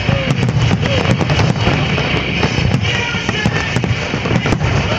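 Aerial fireworks bursting in quick succession, a continuous barrage of sharp cracks and bangs over a low rumble, with music playing under them.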